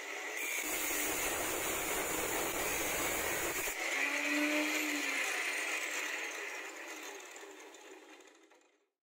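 Angle grinder in a pivoting stand running at speed, its abrasive disc grinding the tip of a steel drill bit held in a sharpening jig for about three seconds, a rough, heavier grinding noise while in contact. The disc is then lifted clear and runs free before the motor winds down and stops near the end.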